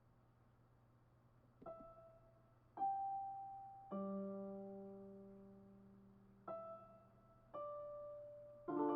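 Slow, sparse solo piano improvisation: single notes struck a second or so apart, each left to ring and fade, with a fuller chord near the end over a faint steady hum.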